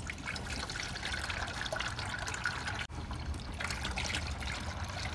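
Pre-mixed 50/50 engine coolant pouring from a jug into a plastic funnel on the coolant reservoir, a steady trickling splash as the cooling system is topped off. The flow breaks off for an instant about three seconds in.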